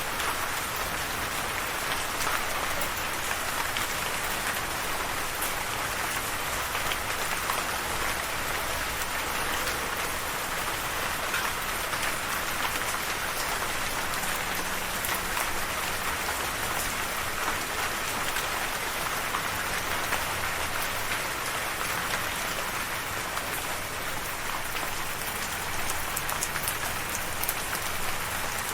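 Steady rainfall, an even hiss of rain with many small drops pattering on a surface.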